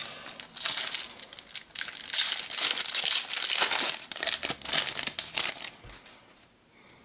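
Foil wrapper of a Panini Adrenalyn XL trading card booster pack being torn open and crinkled: a run of crackling rustles that dies away about six seconds in.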